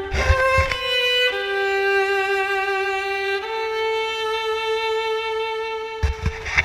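Background music: an instrumental passage of a song, a solo melody line of long held notes that changes pitch about a second in and again about three and a half seconds in.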